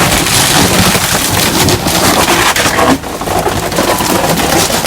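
Old fibreglass septic tank being crushed by an excavator: a dense, loud run of cracking and crunching as the shell breaks up, easing briefly about three seconds in.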